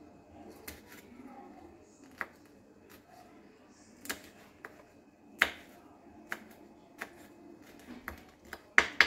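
Kitchen knife chopping a green chilli on a wooden cutting board: about a dozen sharp taps of the blade on the board, unevenly spaced and coming faster near the end.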